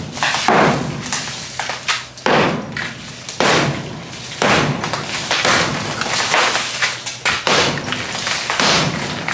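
Small sledgehammer blows against a hollow concrete-block wall around a wooden window frame, about one sharp impact a second, each followed by a brief rattle of breaking block.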